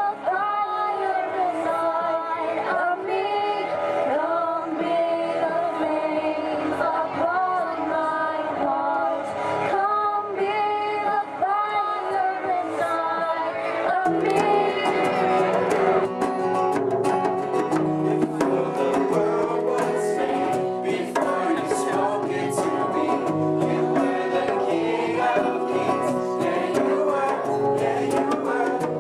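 A song with singing over instrumental backing. It gets fuller, with a steady beat, from about halfway through.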